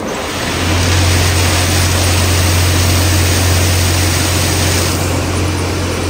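Concrete batching plant running while freshly mixed concrete discharges into a transit mixer truck's drum: a loud, steady machine drone with a strong low hum that sets in about half a second in.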